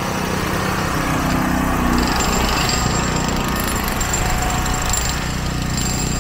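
A small engine running steadily and loudly close by, with a thin high whine joining about two seconds in.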